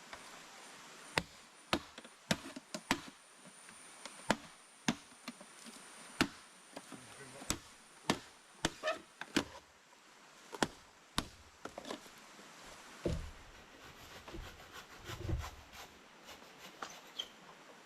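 Irregular sharp knocks of a blade chopping on wood, roughly one a second and sometimes two in quick succession, with two duller, heavier thumps near the end.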